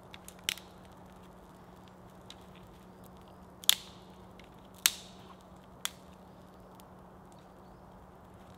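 Wood burning in a campfire, giving four sharp cracks and pops a second or so apart, the second the loudest.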